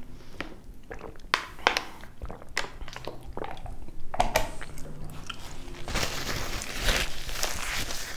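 Close-up gulps of water from a plastic bottle, with short crackles and clicks, then a steady rustle from about six seconds in as a paper napkin is rubbed over the hands.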